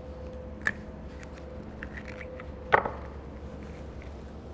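Oyster knife working into an oyster shell's hinge: a few small clicks and scrapes of steel on shell, with one sharp click about three seconds in, over a steady hum.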